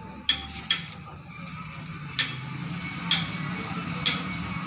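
Scissors snipping and handling the paper shim strips set round a speaker's voice coil: a few sharp clicks spaced about a second apart, over a low steady hum.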